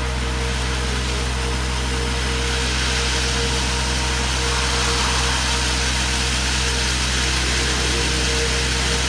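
Diesel engine and hydraulic drive of a trailer-mounted core drilling rig running steadily while a 300 mm core barrel drills into the asphalt road. A rushing hiss swells about three seconds in.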